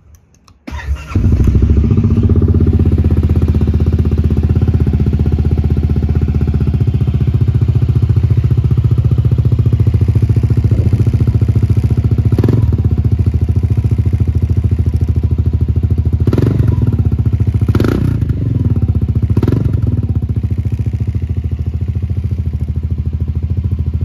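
Honda ADV350 scooter's single-cylinder four-stroke engine starting about a second in, then idling steadily through an Arrow aftermarket slip-on exhaust with a throaty note. A few short, sharper sounds break through about halfway and again near the end.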